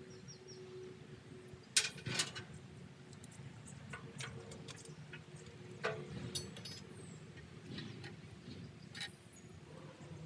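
Scattered clicks and knocks from hand work on the loader mount, as parts and bolts are handled, with the loudest pair about two seconds in. A faint steady hum runs underneath.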